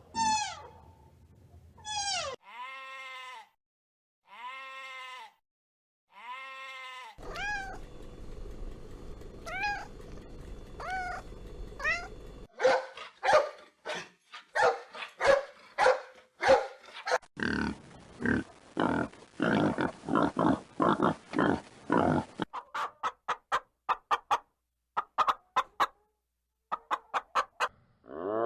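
A run of different animals' calls in succession. It opens with several falling, cat-like calls. Later come sparser rising calls, then a long stretch of rapid pulsed calls of the kind heard from goats or other livestock.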